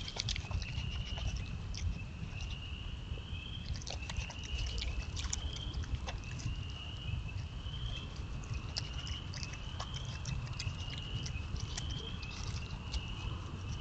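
Opossum chewing seed and corn from a feeder tray: irregular sharp crunching clicks. A high call repeats in the background about once every second and a half.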